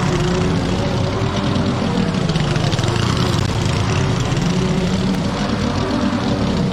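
Petrol lawn mower engine running steadily.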